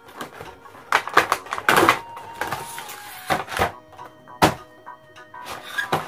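Cardboard toy box and plastic packaging being opened and handled: a series of sharp knocks and rustles, the strongest about one to two seconds in and again near four and a half seconds. Background music plays under it.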